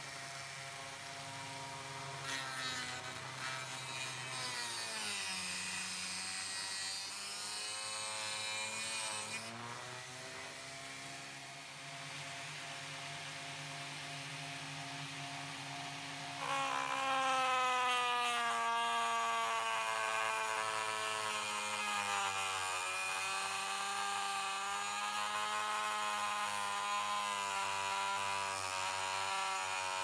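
Guild rotary multi-tool spinning a cutting disc through the metal rail of OO gauge model railway track: a motor whine that sags in pitch each time the disc bites, over a high grinding hiss. The cut gets louder about halfway through.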